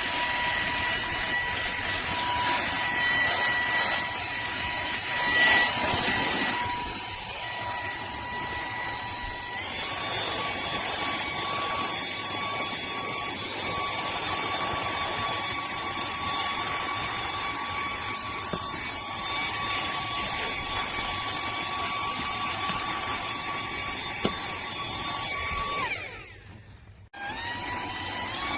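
KLYNGTSK cordless handheld vacuum cleaner's small high-speed motor running with a steady high whine, its pitch stepping up slightly about ten seconds in. Near the end it is switched off and then winds back up to speed.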